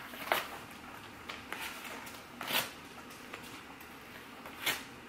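Sticker sheets being pulled out of a cardboard file box and laid on a card: a few short, sharp paper rustles, the loudest about halfway and near the end.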